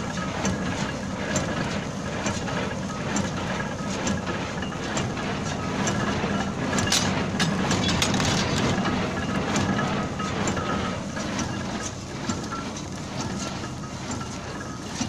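Small square baler running as it bales straw: steady mechanical clatter with a regular knocking rhythm, over a low steady drone.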